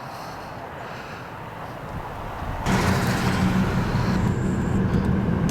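Vehicle engine and road noise, growing slowly and then suddenly louder with a deep hum about two and a half seconds in.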